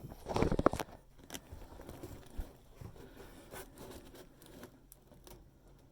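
Dryer vent hose being handled and worked back onto the dryer's exhaust outlet: a louder rustling scrape in the first second, then light scrapes and small clicks.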